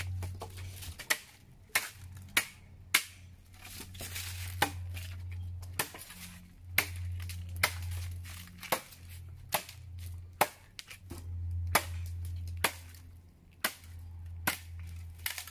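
Dry wood being chopped up for a fire: a string of sharp, irregular chopping strikes, roughly one a second.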